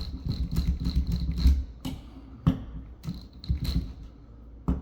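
Power drill driving 1-inch drywall screws through a railing bracket into wall anchors: two runs of motor whine with rattling, the first about two seconds long and the second shorter, with sharp clicks between them.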